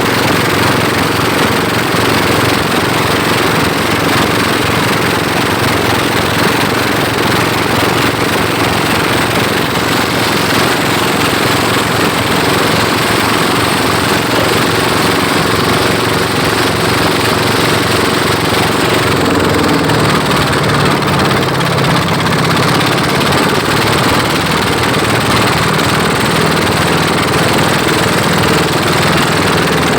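Pompong motorboat engines running hard in a race, loud and steady. About two-thirds of the way through, the engine note changes as a lower-pitched engine comes in.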